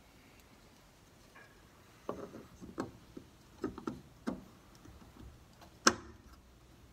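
Wooden end cap being handled and pressed onto the end of a hollow barn-wood box-beam mantel: a run of soft knocks and taps from about two seconds in, then one sharp click near the end, the loudest sound.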